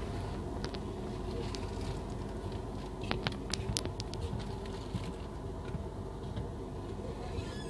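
Running noise of a moving train heard from inside the coach: a steady low rumble from the wheels on the rails, with a short cluster of sharp clicks about three to four seconds in.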